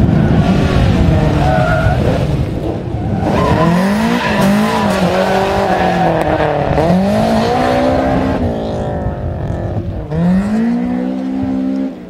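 Fifth-generation Honda Civic hatchback's engine revving up and down again and again as the car is thrown through tight turns, with tyres squealing on the asphalt. A last rise in revs comes about ten seconds in.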